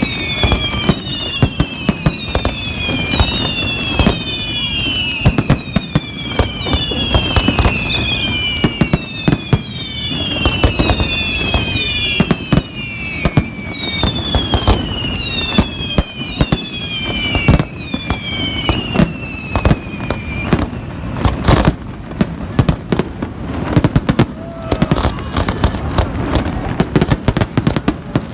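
Fireworks display: dense crackling bangs and pops throughout, with a run of high whistles, each falling in pitch, about one a second, until about two-thirds of the way through. A single sharper crack comes a little after that.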